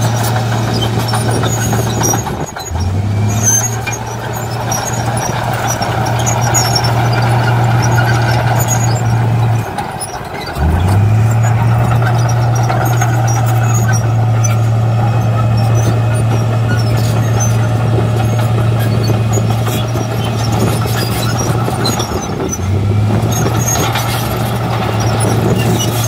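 D53P crawler bulldozer's diesel engine running at a steady pitch while it pushes soil. Three times, about two, ten and twenty-two seconds in, the engine note dips out and then climbs back up. Small high squeaks from the steel tracks are scattered throughout.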